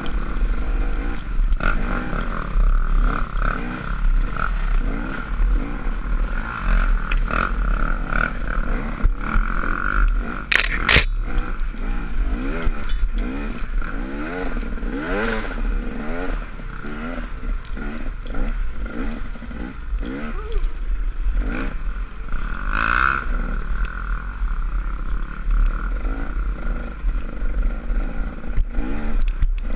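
Dirt bike engine revving up and down as the rider throttles on and off, heard close up. Rattling and knocking from the bike over rough ground, with a sharp knock about 11 seconds in.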